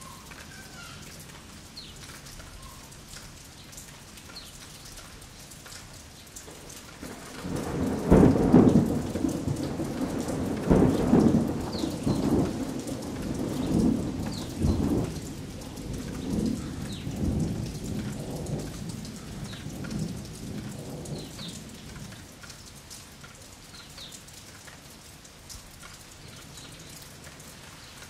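Steady rain with a long roll of thunder that rises about seven seconds in, is loudest near the start, then rumbles on in several swells before dying away after about twenty seconds.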